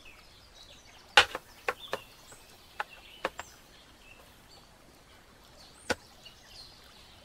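Small laser-cut MDF pieces clicking and knocking against each other as they are fitted together by hand: a handful of sharp, separate taps, the loudest a little after a second in.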